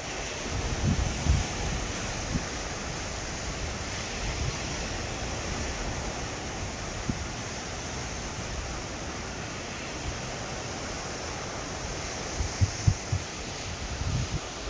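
Steady rushing outdoor noise with wind buffeting the microphone in low gusts, heaviest about a second in and again near the end.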